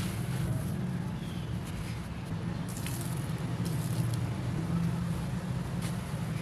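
Dusty concrete chunks crumbling and squishing, faint crackles and a few sharp clicks over a steady low hum.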